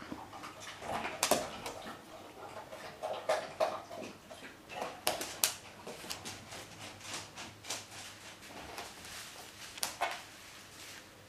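Two dogs, a Golden Retriever and a young Greater Swiss Mountain Dog, play together: short vocal sounds from the dogs come now and then among many sharp clicks and knocks.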